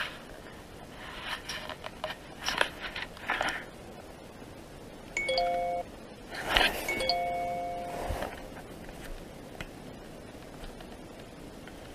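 Two electronic chime tones from a phone's ghost-radar app, a short one about five seconds in and a longer one about two seconds later, with soft rustling and handling noises around them.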